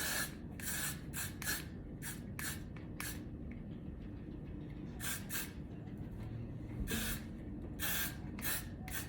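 Short hissing spritzes of a hair-styling spray product, a dozen or so irregular bursts, some quick and a few longer.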